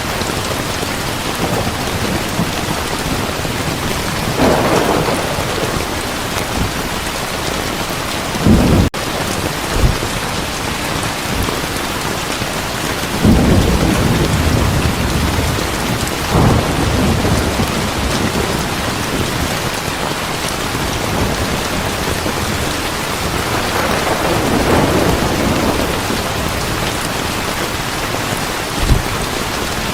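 Heavy rain falling steadily, with rumbles of thunder rolling in several times. The rain cuts out for an instant about nine seconds in.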